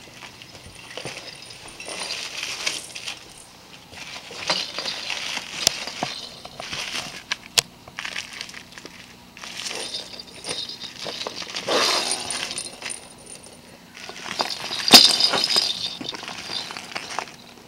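Clear plastic bag crinkling in repeated bursts as a ferret burrows and wriggles inside it among toy balls, with a few sharp clicks and clinks; the loudest rustle comes about three-quarters through.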